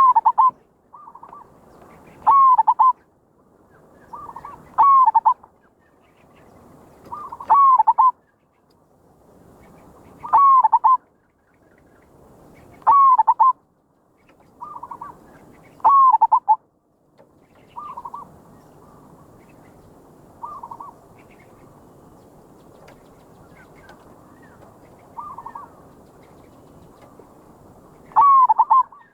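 Zebra dove (merbok) cooing: loud short coos repeated every two to three seconds, with fainter coos in between. The loud coos stop for about ten seconds in the later part, leaving only the faint ones.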